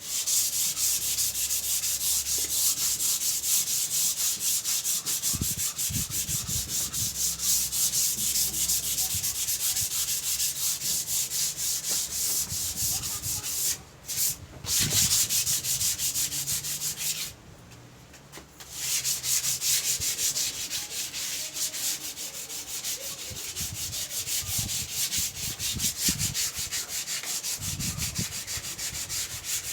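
Hand sanding of wood: fast, even back-and-forth strokes of sandpaper. It stops briefly about 14 seconds in, and again for over a second a few seconds later, then carries on a little softer.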